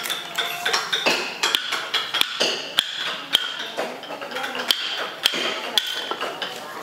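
Wooden mallet driving a steel chisel into a large wooden log: sharp knocks about twice a second, each with a short metallic ring.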